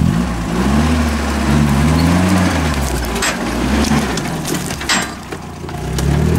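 GAZ-69 off-roader's engine revving up and down under load as it drives through a brushy gully, with dry branches cracking and snapping against the vehicle, sharpest about three and five seconds in.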